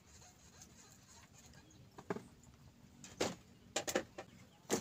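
A few short, sharp knocks and taps of fishing gear being handled on a bamboo raft: a rod and landing net set down against the bamboo. They come singly about two and three seconds in, then a quick pair, then a louder one near the end.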